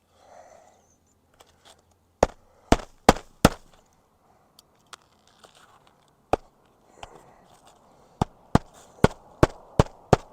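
Magnetic roofing hatchet driving nails through asphalt shingles into a second shingle layer beneath. Four sharp blows come about two seconds in and a single blow a few seconds later, then a steady run of about six blows, two or three a second, near the end.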